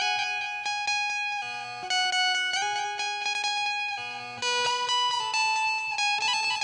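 Indian banjo (bulbul tarang) playing a melody, each held note struck with quick repeated plucks, with fresh louder phrases starting about two seconds and four and a half seconds in.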